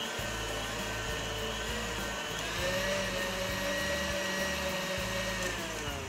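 KitchenAid Ultra Power stand mixer running, its wire whisk beating whipped cream as a coffee and cocoa mixture is folded in. The motor's whine steps up in pitch about two seconds in as the speed lever is pushed up, holds steady, then slides down near the end as the speed is turned back down.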